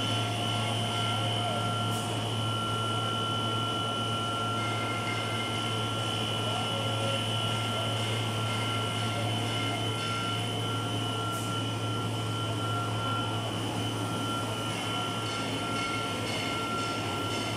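Food-processing production line machinery running: a steady low hum under a noisy drone, with a constant high-pitched whine.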